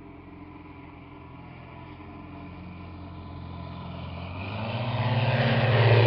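Light aircraft's piston engine and propeller running at power, growing steadily louder as the plane comes in low and passes close by, loudest near the end.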